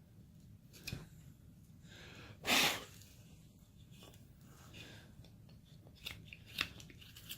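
Carving knife slicing chips from a basswood figure: scattered short crunching cuts, one louder half-second burst about two and a half seconds in, and a quicker run of cuts near the end.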